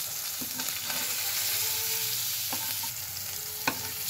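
Pieces of catla fish sizzling steadily as they fry in hot oil in a pan, with about three short clicks of a metal spatula against the pan as the pieces are turned, the last one the loudest.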